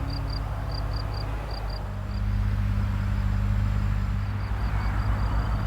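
Crickets chirping in short, rapid pulses, fainter after about two seconds in, over the steady low hum of an engine running.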